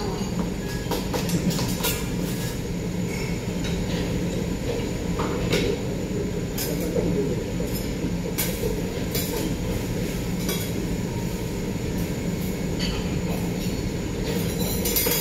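Metal spatulas clicking and scraping on a teppanyaki griddle, in irregular sharp strikes over a steady low hum.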